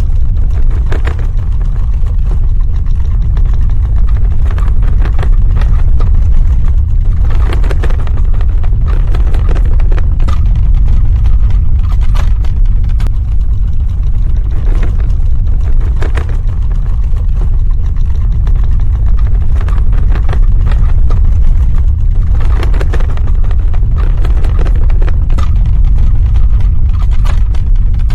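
Earthquake sound effect: a loud, continuous deep rumble, with scattered crackling and rattling over it.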